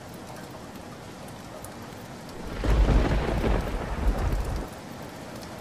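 Steady rain with a thunderclap about two and a half seconds in. The thunder rumbles for about two seconds, swells again briefly, then stops suddenly while the rain goes on.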